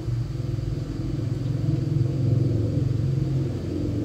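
Espresso machine pump running with a steady low hum, growing louder about two seconds in.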